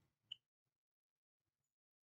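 Near silence, with one faint short tick about a third of a second in.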